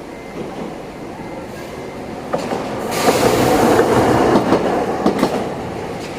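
Single-car Toden Arakawa Line tram passing over a level crossing. It grows loud about two and a half seconds in and is loudest for a second or two, with a few sharp wheel clacks over the rail joints.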